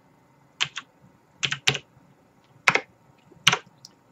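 Computer keyboard keys pressed one at a time, entering shortcuts: a handful of sharp separate clicks, some in quick pairs, with short gaps between them.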